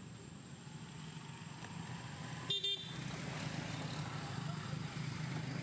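A road vehicle's engine running and slowly growing louder, with a horn giving a brief double toot about halfway through.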